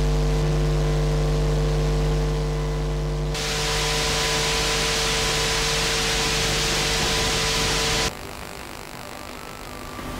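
Electrical hum and buzz picked up from stray magnetic fields by an induction loop receiver's pickup coil and high-gain amplifier: a steady mains drone with many overtones. About three seconds in a loud hiss joins the hum, and about eight seconds in the sound cuts sharply to a quieter hiss with fainter hum.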